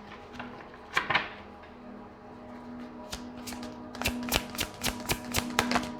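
Tarot cards being shuffled by hand: a few card snaps about a second in, then a quick run of sharp snaps, about three or four a second, over the last few seconds. Soft background music holds steady tones underneath.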